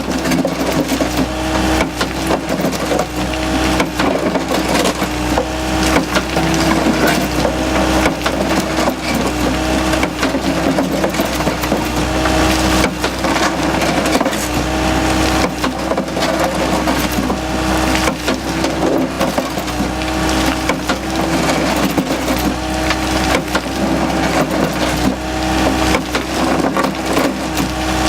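Anross CB100 Crusha crusher bucket, its hydraulically driven reciprocating jaw crushing concrete and sandstone in a dense, irregular run of cracking and grinding. Under it the excavator's engine and hydraulics hum steadily.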